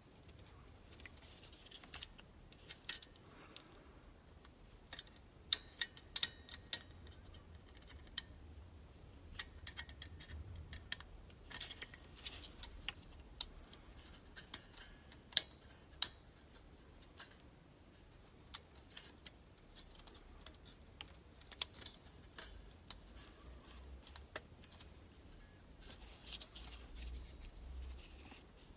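Small metal clicks and taps from handling a car's cabin-fan resistor block, with its coil-spring resistors, while a thermal fuse is worked into its crimp tabs. The sharp clicks come at uneven intervals.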